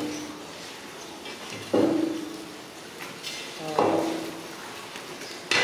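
Heavy knocks about two seconds apart, three in all, each followed by a brief ringing tone that dies away.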